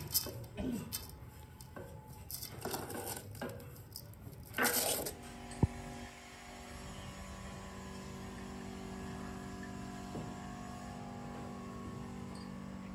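Metal parts clinking and knocking in a workshop, with a louder scrape-like burst about five seconds in, then a steady machine hum with a few even tones.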